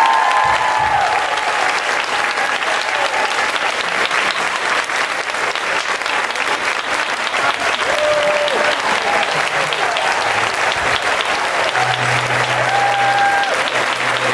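A large crowd applauding steadily, a dense continuous clatter of many hands clapping at once.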